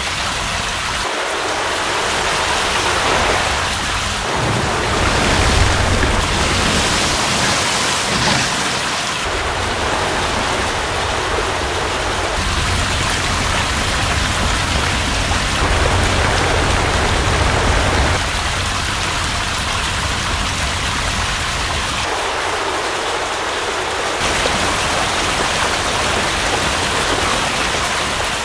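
Loud, steady rushing-water sound, a dense even hiss, whose character changes abruptly every few seconds.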